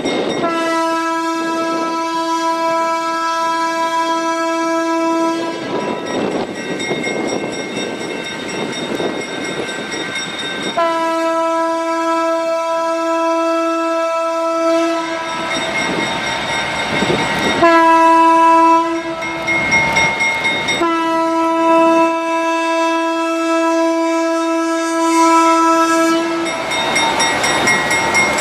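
Horn of a 1942 General Electric 65-ton center-cab diesel switcher sounding the grade-crossing signal: two long blasts, one short, one long, on a single steady note. Between blasts the locomotive and its freight cars roll across the crossing with wheel clatter.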